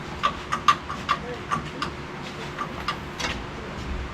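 A string of light, irregular metallic clicks and clinks, about a dozen in four seconds, each with a brief ring at the same pitch: hand tools and loose metal parts being worked during a truck teardown.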